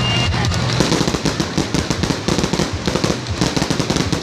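Fireworks crackling in a rapid, dense string of small bangs that starts about a second in, with music underneath at first.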